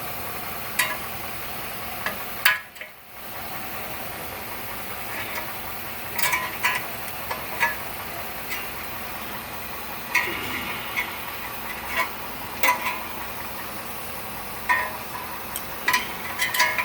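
Nissan NV200 van's engine idling steadily, with a dozen or so short, sharp metallic clicks and scrapes scattered over it.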